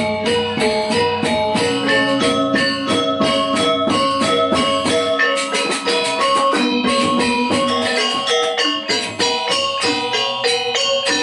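Balinese gamelan music: fast, dense strokes on bronze metallophones, with bright jingling cymbal-like percussion.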